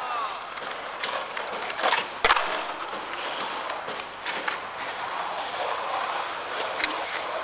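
Skateboard rolling on concrete, the wheels giving a steady hiss, with a few sharp clacks of the board, the loudest a little after two seconds in.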